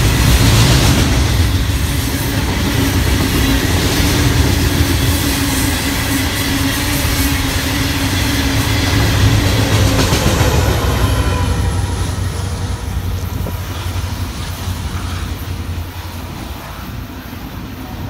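Union Pacific freight train passing close by: a steady rumble and clatter of hopper-car wheels on the rails, then a diesel locomotive at the rear of the train goes by about ten seconds in. After that the sound gradually fades as the train moves away.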